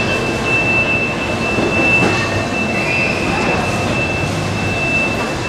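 Busy market-stall background noise: a dense steady din with faint murmur and light knocks, under a steady high-pitched whine.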